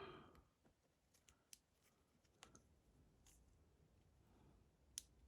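Near silence broken by a few faint, sharp clicks of small metal lock parts and tools being handled as a Medeco lock cylinder is taken apart.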